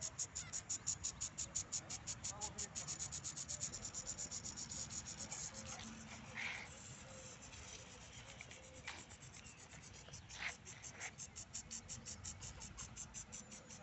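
Lawn sprinkler ticking fast and evenly, about eight scratchy ticks a second, fading a little in the middle.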